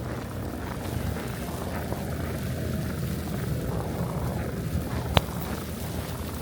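Steady low wind rumble on the microphone with footsteps crunching through snow at a walking pace. A single sharp click about five seconds in.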